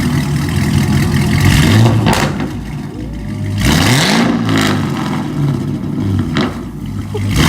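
Supercharged LSA V8 of a second-generation Cadillac CTS-V running through its newly fitted aftermarket exhaust, idling and revved up once about halfway through before dropping back.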